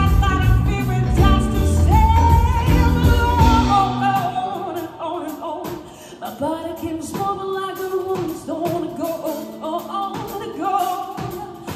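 Live rock band with a woman singing lead over electric guitars, bass and drums. About four seconds in, the bass and drums drop out and the voice carries on over lighter guitar.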